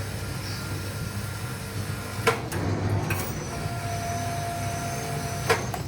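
Machinery running with a steady low hum, with two sharp clanks, one a little over two seconds in and one near the end, and a thin steady whine between them.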